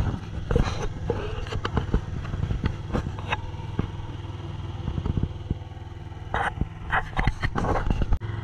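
An engine running steadily with a low hum, with scattered knocks and clatters over it that bunch up near the end.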